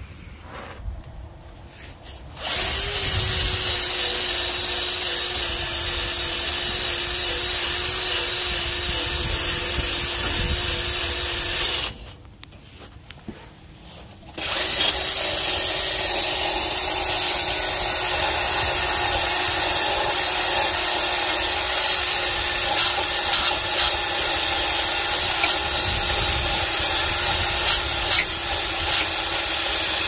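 Cordless drill with a wire-wheel brush running against rusty underbody steel, a steady high whine. It runs in two long stretches, about ten seconds and then about fifteen, with a short stop around twelve seconds in.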